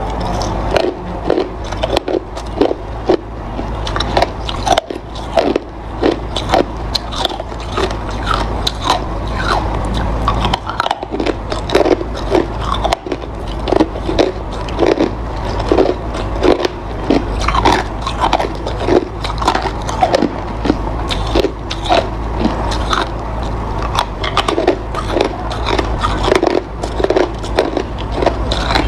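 Hard ice being bitten and chewed close to the microphone: a continuous run of sharp, irregular crunches and cracks, several a second, over a steady low hum.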